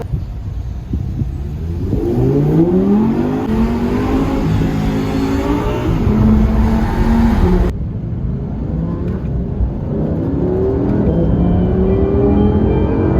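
2021 Audi R8 V10 Performance's naturally aspirated V10 running and revving, its pitch climbing several times. The sound breaks off abruptly about two-thirds of the way through, then the engine note rises again.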